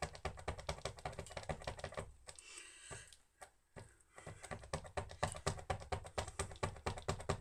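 Paint pen's valve tip being pumped against paper: rapid plastic clicks, several a second, in two runs with a short pause about three seconds in. The pen is being primed and the paint has not started to flow yet.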